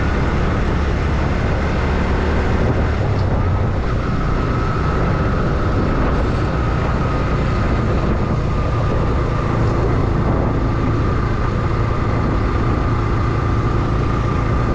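Bajaj Pulsar NS125's single-cylinder engine running steadily while the motorcycle is ridden along at cruising speed, mixed with wind and road noise.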